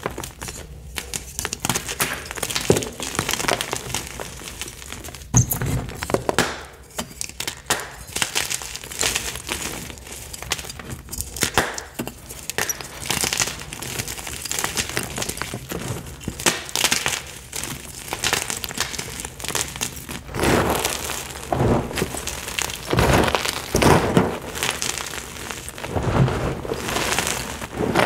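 Picsil gym chalk blocks crushed and crumbled by hand into a pile of chalk powder: dry, crisp crunching and crackling, with heavier crunches in the last several seconds.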